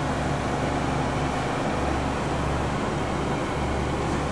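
Steady low electrical hum with an even, fan-like whir over it from a powered-up CNC mill's open electrical cabinet; the sound holds unchanged throughout.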